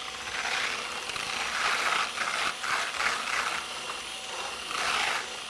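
Cordless USB-rechargeable hand mixer running, its whisk churning milk in a bowl, the level rising and falling unevenly as the whisk moves.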